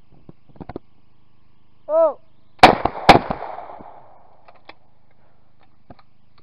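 Over-and-under shotgun fired twice about half a second apart at a clay, the first shot the louder, with the report trailing off for about a second. Just before the shots comes a short shouted call that releases the clay through the voice-release trap.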